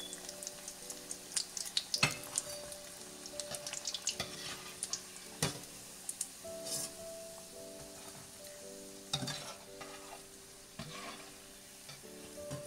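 Bread samosas deep-frying in hot oil, with a steady sizzle broken by many sharp crackles. A slotted steel spoon knocks and scrapes against the steel pan now and then as the samosas are turned and lifted.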